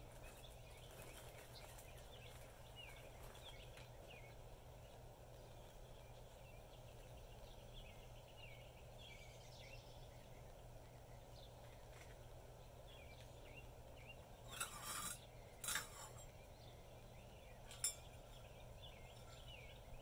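Faint outdoor ambience: birds chirping in the background over a low steady hum, with two short hissing bursts about fifteen seconds in and a single click near the end.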